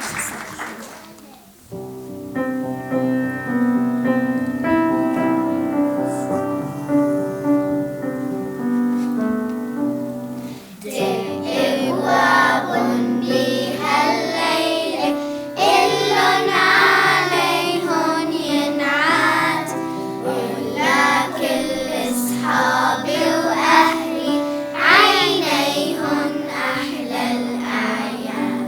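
Applause dying away, then an instrumental introduction of held chords, then a children's choir singing with the accompaniment from about eleven seconds in.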